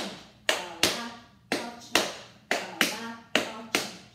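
Tap shoes' metal taps striking a wooden board in a flap, ball change: sharp clicks about two a second, often in quick pairs, each one ringing briefly.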